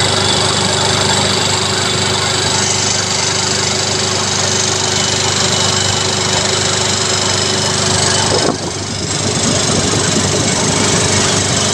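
J.P. Sauer WP151L marine reciprocating air compressor with finned, air-cooled cylinders, running steadily under pressure with a fast, even mechanical knocking clatter. Its level drops briefly about three quarters of the way through.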